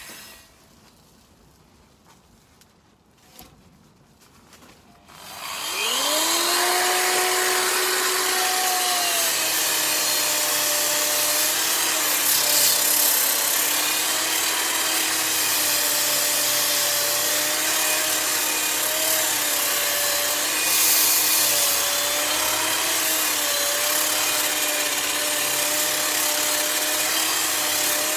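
Angle grinder winding down and falling quiet for about five seconds, then switched on again: the motor spins up with a rising whine, settles, and dips slightly in pitch as the abrasive wheel bears on the old spruce beam. It then grinds the weathered wood steadily, its pitch sagging a little now and then under load.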